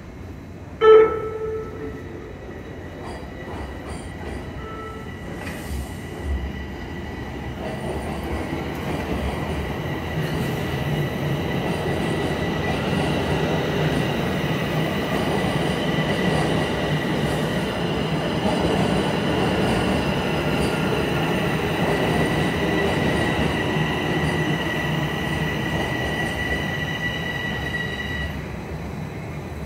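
Toronto subway train arriving in an underground station: a short loud horn-like tone about a second in, then the train rumbles in alongside the platform, growing louder, with a steady high squeal that stops as the train comes to a halt near the end.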